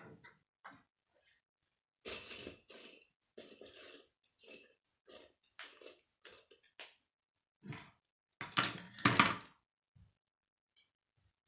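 K'nex plastic rods and connectors rattling and clicking as they are picked through and handled, in irregular bursts, loudest about three-quarters of the way through.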